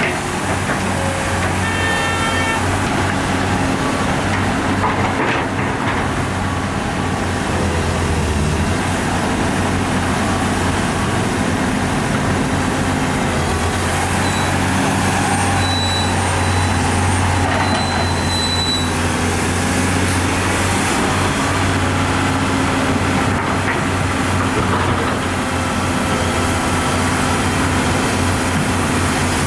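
Heavy diesel construction machinery, an excavator and dump trucks, running steadily under load while working earth. A brief higher tone comes about two seconds in.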